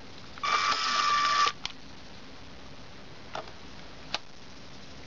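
LEGO Power Functions motor of the train's built-in switching unit whirring for about a second with a steady whine, then stopping abruptly. A sharp plastic click comes just after it, and two fainter clicks follow later.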